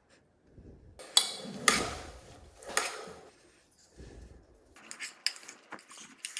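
Kitchen utensils and dishware clattering while corn is seasoned. A few sharp scrapes and knocks come about a second in, then a quick run of light clinks near the end.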